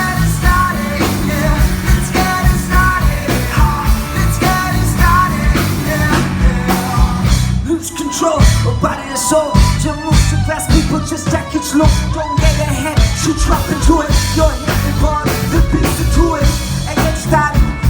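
Loud band music with a steady, driving beat and heavy bass; the bass drops out briefly about eight seconds in, then the full band comes back.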